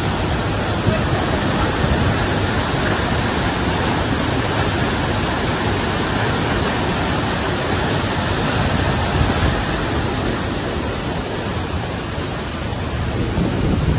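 Torrent of muddy floodwater from a river that has burst its banks, rushing through the streets and pouring over an embankment wall in a steady, loud wash of noise.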